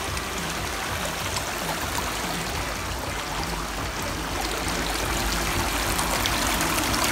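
Shallow stream running and trickling over stones, a steady rush of water that grows a little louder about halfway through.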